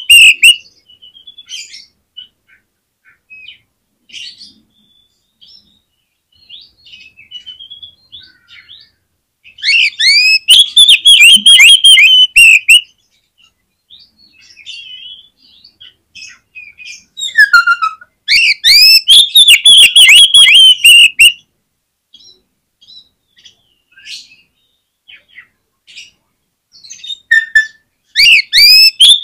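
Oriental magpie-robin (kacer) singing: loud bursts of rapid, repeated sweeping notes, each burst lasting about three seconds and coming roughly every nine seconds, with softer, varied chirps between. This is the energetic full song kept birds are played to set them singing.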